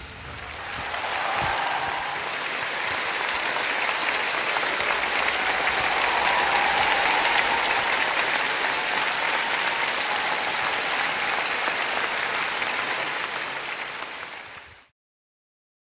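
A large crowd applauding steadily. It builds up within the first second, eases off a little near the end, then cuts off suddenly.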